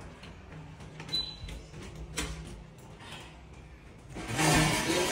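A few light taps and knocks, then a loud scraping rush about four seconds in, as a wall panel is pushed and slid into place against its frame.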